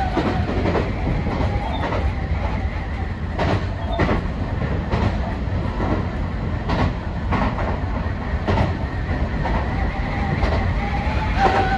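Sotetsu 20000 series electric train running at speed, heard from inside the driver's cab: a steady wheel-and-rail rumble with sharp clacks at uneven intervals as the wheels cross rail joints and points. A steady whine comes back near the end.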